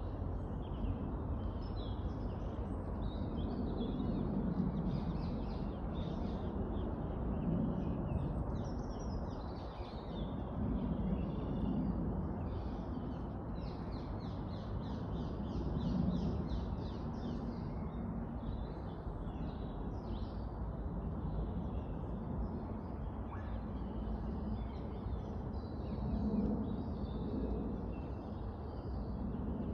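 Woodland birdsong: several small birds singing and calling in chirps and quick trills, over a steady low rumble.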